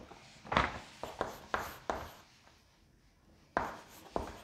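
Chalk writing on a chalkboard: a quick run of short, sharp chalk strokes and taps, a pause of about a second and a half, then two more strokes near the end.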